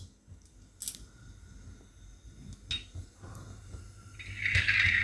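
Whole cloves sizzling in hot ghee in an aluminium kadai on a gas stove. A few faint crackles come first, then a louder sizzling hiss about four seconds in that lasts around a second.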